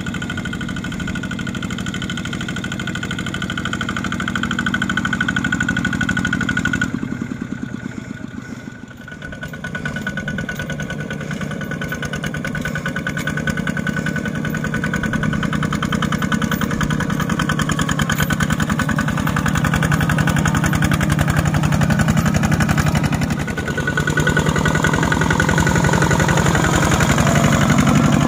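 Single-cylinder diesel engine of a two-wheel walking tractor chugging steadily under load as it hauls a loaded rice trailer through mud. The engine sound drops briefly about a quarter of the way in, then picks up again and shifts once more toward the end.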